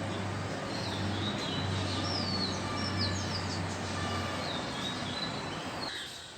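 Birds calling outdoors: repeated short chirps that slide down in pitch, over a steady noisy background and a low hum. The hum stops about five seconds in, and the background noise drops away near the end.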